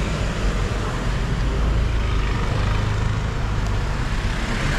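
City street traffic: cars and vans running and passing close by, with a steady low engine rumble under a constant hiss of road noise.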